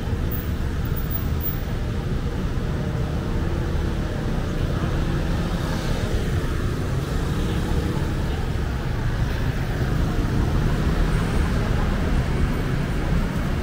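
Busy city street ambience: a steady hum of road traffic with faint voices mixed in.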